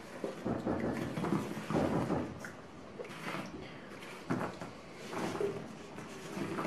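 Chopped raw apple pieces sliding and tumbling out of a metal bowl and dropping onto stretched strudel dough: an irregular run of soft knocks and clatters.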